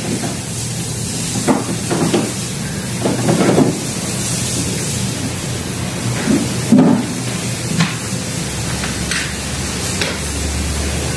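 Several short plastic knocks and clunks as the air intake duct and air filter box lid are pushed back into place and pressed down, over a steady background hum of workshop noise.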